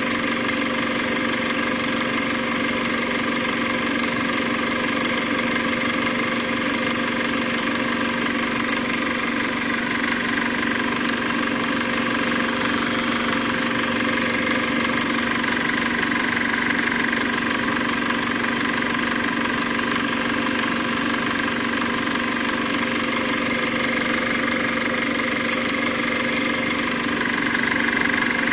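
A steady mechanical drone with a constant hum, unchanging throughout.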